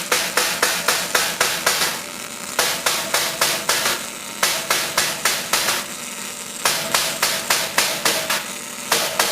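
Rhythmic hammer blows on metal with a short ringing tone, about four strikes a second, in runs of roughly two seconds broken by brief pauses.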